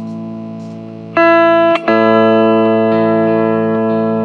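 Hawaiian steel guitar playing a slow melody of long held notes over a steady sustained low accompaniment. A note comes in about a second in, and a new note enters just before two seconds and is held.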